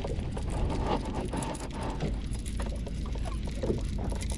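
Wind rumbling on the microphone and water lapping at a small boat, with light clicks from a line-counter fishing reel being cranked in.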